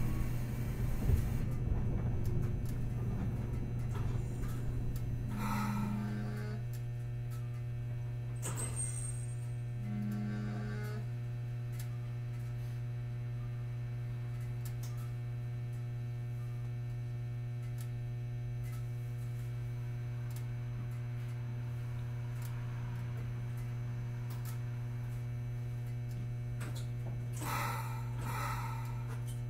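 Hakodate City Tram 3000-series car heard from inside while standing at a stop: a steady electrical hum from its on-board equipment, after a low rumble fades over the first few seconds. Two short low tones about four seconds apart, a sharp clack between them, and a brief clatter near the end.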